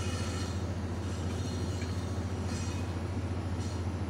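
Steady low machinery drone, the constant hum of an engine running on the barge, with two faint clicks near the end.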